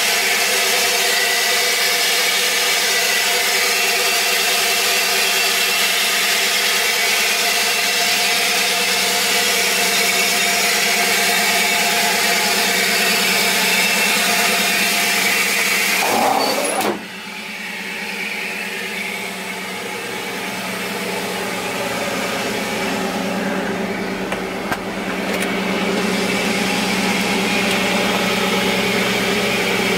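The truck's 5.3-litre LS V8 running steadily on the move, with road and wind noise under it. About halfway through the sound drops off suddenly, then slowly builds back up.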